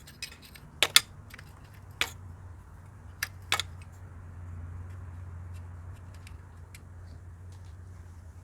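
Metal hand tools clinking: a handful of sharp, separate clinks spread over the first few seconds, over a low steady hum.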